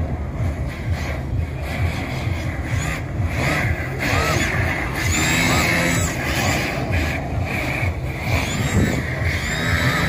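Electric motors of RC drift cars whining. The pitch rises and falls over and over as they throttle up and off through the course, with more than one car running at once.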